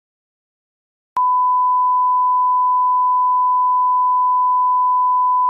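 A steady 1 kHz sine test tone, of the kind used as a line-up reference tone on a video master, cutting in with a click about a second in after silence and holding at one pitch.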